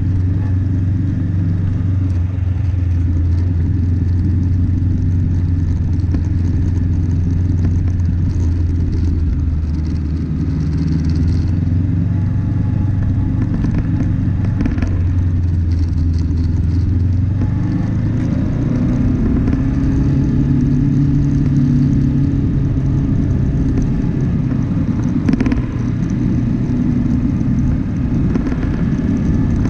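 Vehicle engine running while driving over a rough track, with a steady low rumble. The engine note rises a little just past the middle, and there are a couple of short knocks, the sharpest near the end.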